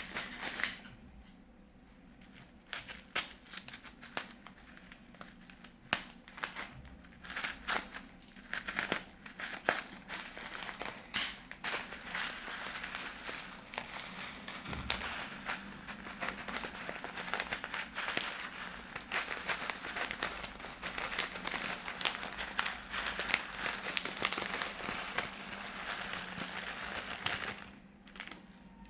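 Plastic piping bags crinkling and crackling as they are handled. A few scattered crinkles at first, then continuous dense crackling that stops shortly before the end.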